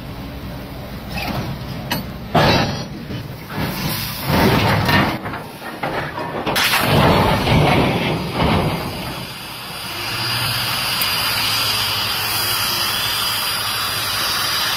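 A derailed railway wagon toppling over and crashing onto its side while cranes and a bulldozer try to right it: a series of heavy, irregular crashing and grinding surges over several seconds. It is followed by a steady hiss with a low machinery hum.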